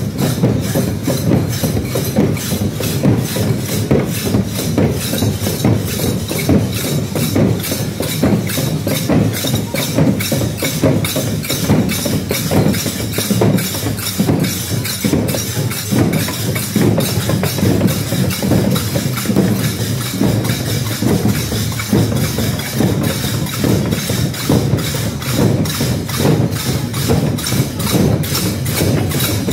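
Dammam drums beaten with sticks in a fast, continuous rhythm of dense overlapping strikes, the deep drum tone carrying throughout.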